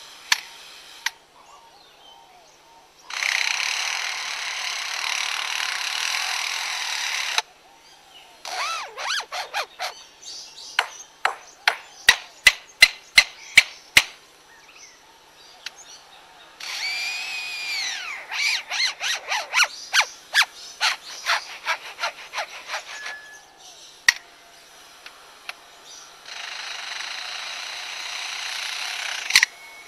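A lyrebird mimicking power-tool sounds, chainsaw-like. There are several seconds of steady rasping buzz, then a run of sharp clicks that come faster and louder, then a buzz with a rising-and-falling whine over rapid clicking. Near the end the steady buzz comes again.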